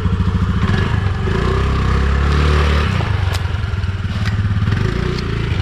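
Honda Dio scooter's single-cylinder four-stroke engine running, revving up about a second in as the scooter pulls away, then easing back to a steadier note.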